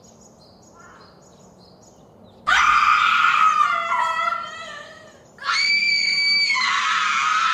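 Two long, loud screams: the first starts about two and a half seconds in and slides down in pitch as it fades, the second is a steady, high shriek held for about two and a half seconds near the end.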